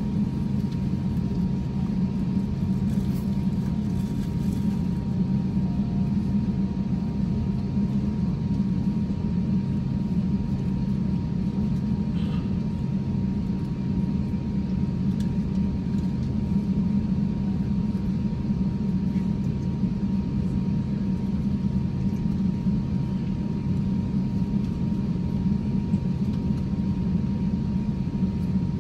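Steady low rumble of an Airbus A350's cabin with the aircraft on the runway and its engines and air systems running, with a faint constant higher hum over it.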